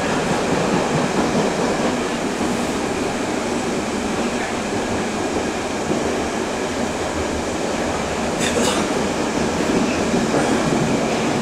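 Interior running noise of a Berlin U-Bahn D57 prototype car riding through the tunnel: a steady rumble and rattle of wheels on track, with a brief high-pitched screech about eight seconds in.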